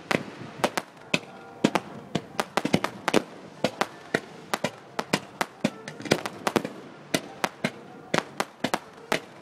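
Fireworks going off: a rapid, irregular string of sharp bangs and cracks, several a second.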